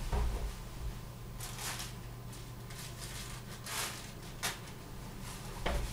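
Quiet room tone with a steady low hum, broken by a few faint, brief rustles from someone moving about out of sight.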